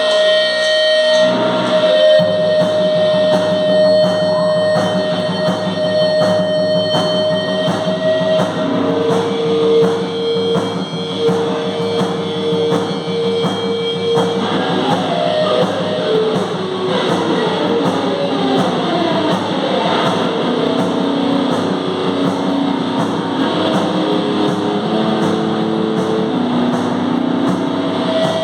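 A hardcore noise metal band playing live: heavily distorted electric guitar holding long notes, some of them sliding, over bass and drums, loud and dense throughout, with the low end coming in about two seconds in.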